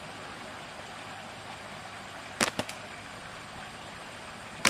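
Slingshot shots: the rubber bands snap sharply on release, two snaps close together a little past halfway and a louder one right at the end, over a steady outdoor hiss.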